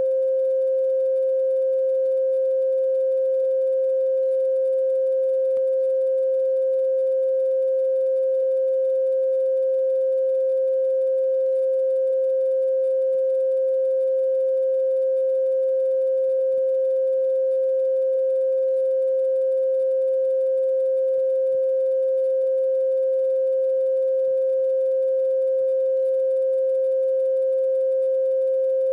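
A single steady pure tone at a mid pitch with faint higher overtones, held without any change, break or fade: an electronic sine-type tone used as the soundtrack.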